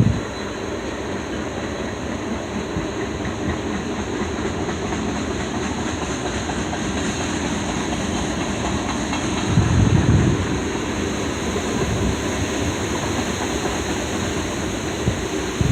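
A CN mixed freight train rolling past, with the steady running noise of its freight cars' steel wheels on the rails. A gust of wind hits the microphone about ten seconds in.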